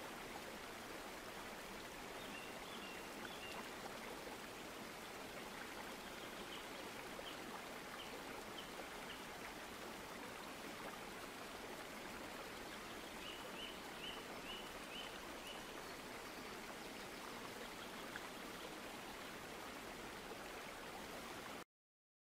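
Steady running-water ambience like a small stream, with faint runs of short high chirps a few times. It cuts off suddenly near the end.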